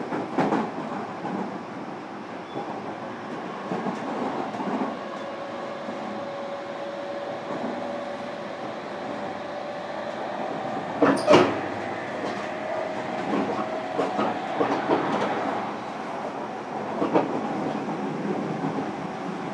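Running sound inside a JR Kyushu 305 series electric train's motor car: steady rolling noise with a faint motor tone that edges up in pitch, broken by clickety-clack from the wheels over rail joints, loudest as a quick double clack about 11 seconds in.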